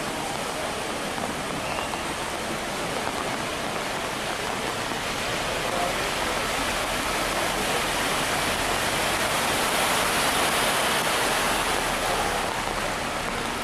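Steady hiss of heavy rain and rushing floodwater in a flooded street. It grows a little louder in the second half.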